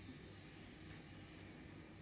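Near silence: a faint steady hiss of room tone.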